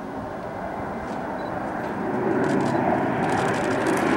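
Fairchild Republic A-10C Thunderbolt II jet flying low straight toward the listener. The noise of its two TF34 turbofan engines grows steadily louder and brighter as it closes in.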